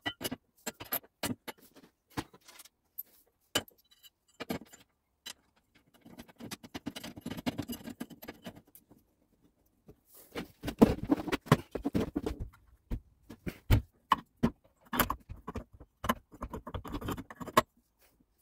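Perforated steel strip clinking and knocking against metal as it is handled and fitted against a bike frame's bolts: irregular clicks and rattles, busiest in two stretches through the middle.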